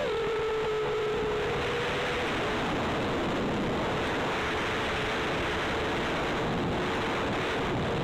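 FPV quadcopter's four Xing 2306 1800kv brushless motors and Hulkie 5055 props in flight, heard through the onboard DVR's microphone as a steady motor hum buried in heavy wind and propeller rush. The hum drops sharply in pitch right at the start as the motors slow, then holds steady.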